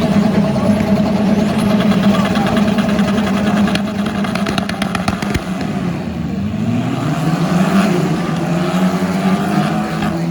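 Touring car engines running, one holding steady revs and then rising in pitch about six seconds in, with a quick run of sharp crackles around four to five seconds in.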